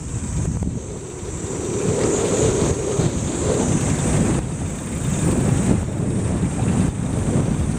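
Wind buffeting the camera's microphone while riding a bicycle: a rough, unsteady rumble with a hiss over it, swelling and easing.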